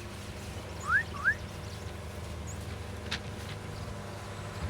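Two short rising bird whistles about a second in, with a steady low hum underneath.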